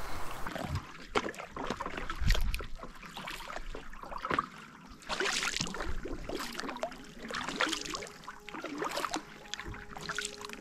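Canoe paddle strokes: water splashing and dripping off the blade at each stroke, about one stroke every second and a quarter. There is a single low thump about two seconds in.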